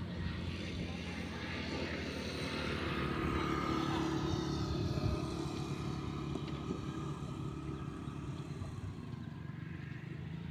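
Engine of a passing motor vehicle, growing louder toward the middle and then fading away, with a brief knock about halfway through.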